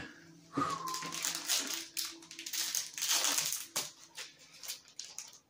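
Foil Yu-Gi-Oh booster pack wrapper crinkling and crackling in a run of quick rustles as it is torn open and the cards are handled.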